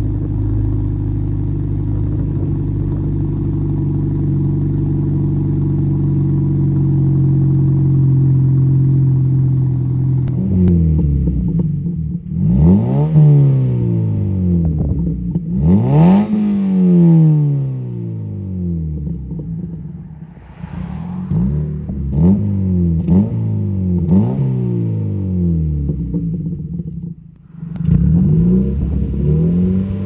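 Mazda MX-5 Mk3's 2.0-litre four-cylinder engine breathing through a muffler-delete exhaust: it idles steadily for about ten seconds, then is revved in a long string of quick blips, each rising and falling in pitch.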